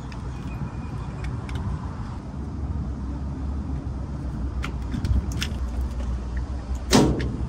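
Small clicks and knocks of a plastic sensor junction box, screwdriver and wiring being handled, with a sharper, louder knock about seven seconds in, over a steady low rumble.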